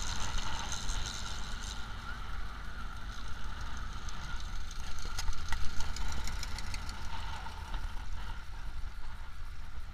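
VW dune buggy engine running as the buggy drives along sand, under steady wind rumble on the microphone, with a spell of rattles and knocks about five to seven seconds in.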